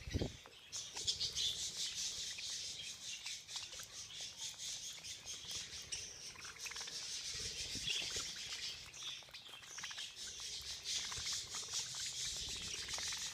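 A flock of budgerigars chattering and chirping together in a dense, continuous twitter, with many small clicks mixed in.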